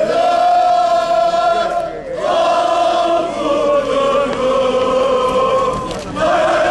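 Crowd of football fans chanting together in unison, in long held phrases, with brief breaks about two seconds in and again near the end.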